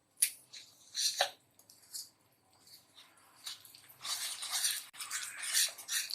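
Gram-flour bajji batter being mixed in a bowl with a little water: scattered wet stirring and scraping sounds that become a busier, continuous run from about four seconds in.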